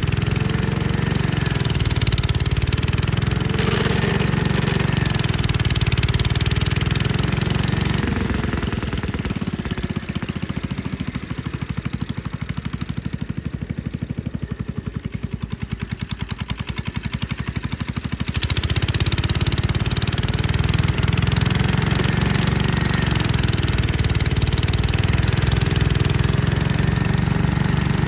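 Gravely Commercial 10A walk-behind tractor's engine running with its Dogeater snowblower attachment, its pitch rising and falling as the load changes. It drops quieter for about ten seconds in the middle, then comes back up to full level.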